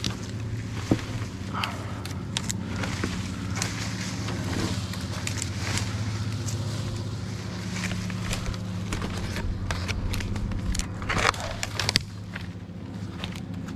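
Steady low engine hum under many scattered crackles and snaps, with a loud cluster of snaps about eleven to twelve seconds in.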